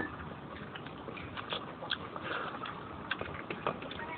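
A person eating by hand: mouth chewing boiled pork hock and rice with irregular wet clicks and smacks, along with fingers working rice on a plastic plate.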